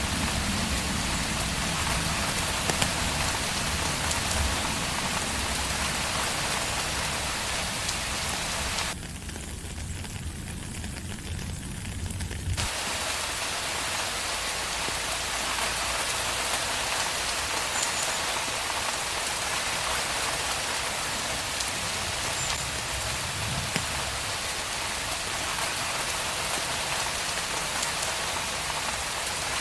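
Steady rain falling on a surface, an even hiss. A low rumble underneath dies away about twelve seconds in, and the rain briefly softens between about nine and twelve seconds.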